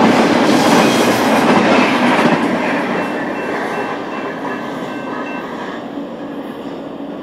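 Intermodal freight train's cars rolling by on the rails, the wheel and rail noise fading steadily as the train moves away.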